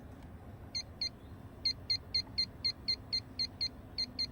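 Electronic refrigerant leak detector beeping: a string of short, identical high beeps, irregular at first, then about four a second in the middle.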